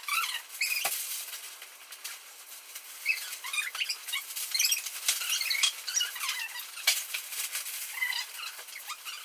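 Rustling and crinkling of plastic bags and backpack fabric as gear is handled and packed, with scattered short clicks and knocks of items being set down.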